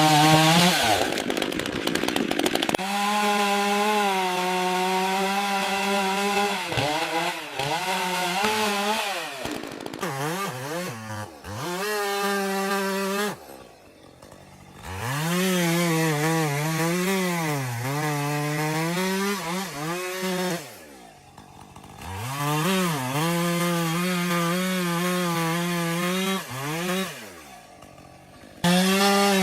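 Chainsaw cutting through wood, its engine pitch repeatedly dipping and recovering as the chain bogs under load. The engine drops away briefly three times, about a third, two thirds and nearly all the way through, then comes back up to full speed.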